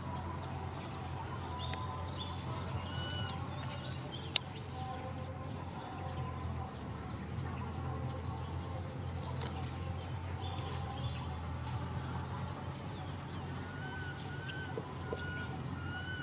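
Many short chirping calls, each rising and falling in pitch, scattered throughout over a steady low hum and a thin high steady tone, with one sharp click about four seconds in.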